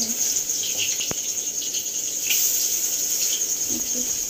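Batter-coated pumpkin flowers frying in hot oil in an aluminium kadai, with a light crackle and a single sharp tap of the steel spatula about a second in. A steady high-pitched chirring runs over it.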